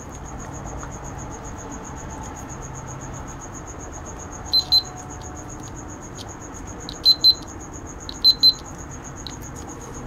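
Buzzer on a remote-control fan's circuit board, reused as a continuity tester, giving three pairs of short high-pitched beeps as its test leads touch a thermal fuse, a sign that the fuse conducts. A faint steady high whine runs underneath.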